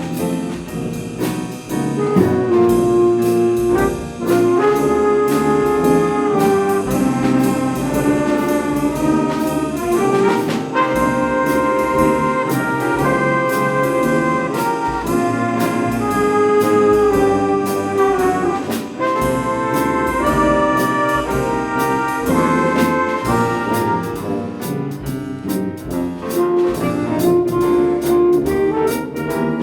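Jazz big band playing a medley of Christmas tunes, led by the brass section of trumpets and trombones, with regular drum and cymbal strikes under it.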